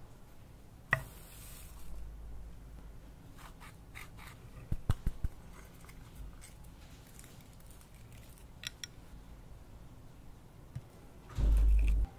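Small clicks and taps of a spoon and slime toppings (beads, sequins, glitter) against clear glass dishes. There is a cluster of quick knocks about five seconds in, and a short, louder low rumble near the end.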